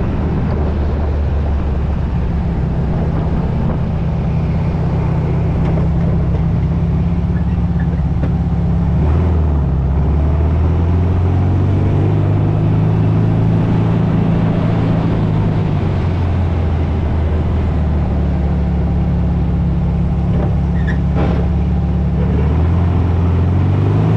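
Volkswagen beach buggy engine driving under load, its pitch holding and then changing several times as it goes through the gears, and climbing in a rev near the end. The transmission is catching every gear now that the shift tube is aligned.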